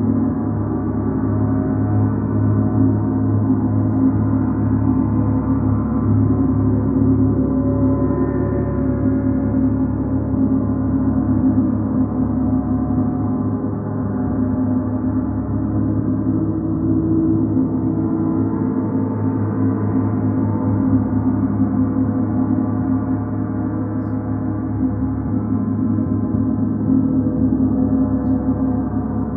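Large suspended gongs, one marked with the Mercury planet symbol, played with a soft red-headed mallet. They give a continuous, swelling wash of many overlapping tones with no distinct single strikes.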